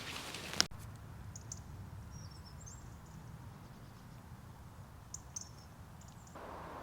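A few short, high bird chirps scattered over a low wind rumble outdoors. A rustling hiss cuts off suddenly with a click a little under a second in, and a broader windy hiss comes back abruptly near the end.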